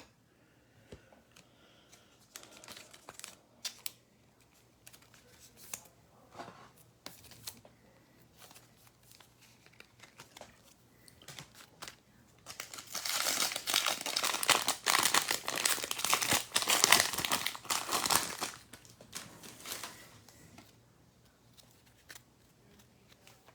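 Faint clicks of trading cards being handled, then a few seconds of loud crinkling and tearing as the wrapper of a 2022 Donruss baseball card pack is ripped open and crumpled, about halfway through.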